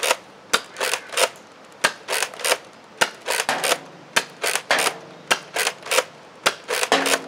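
Nerf Zombie Strike Scavenger, a spring-powered lever-action blaster, being cycled and fired over and over: sharp plastic clacks of the lever priming and the shots, in quick pairs and threes, about one shot a second.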